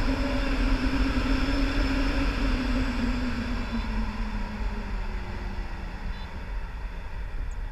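Wind rushing and buffeting over an action camera's microphone during a tandem paraglider flight, with a deep rumble. A steady hum sits under it, sinks slightly in pitch and fades about halfway through.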